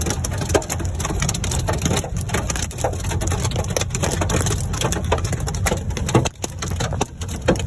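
Rain and hail pelting the roof and windshield of a Ford Mustang, heard from inside the car: a dense patter of many sharp hits over a steady low rumble.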